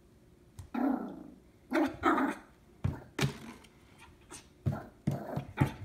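Small white terrier puppy barking at a plastic water bottle: a string of short, separate barks, some in quick pairs.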